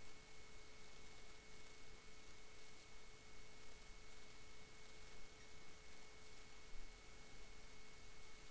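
Faint room tone of the recording: an even low hiss with two thin steady tones, one mid-pitched and one higher.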